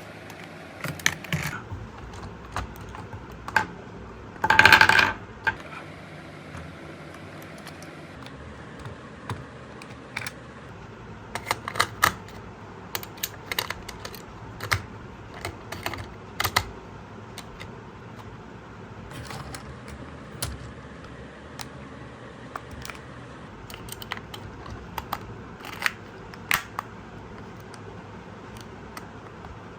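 Irregular small clicks and taps of hands handling a toy car and its plastic and cardboard packaging, with one louder noisy rustle, under a second long, about four and a half seconds in.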